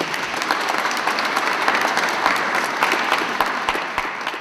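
Audience applauding, a dense steady patter of many hands that fades out near the end.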